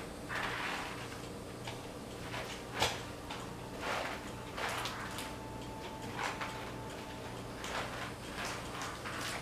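Wet mop being pushed over a tile floor in a series of short swishes, with a sharp knock about three seconds in, over a steady low hum.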